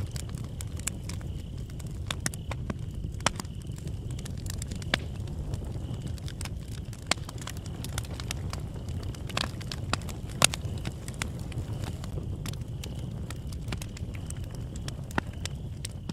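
Bonfire crackling: irregular sharp pops and snaps, a few louder than the rest, over a steady low rumble.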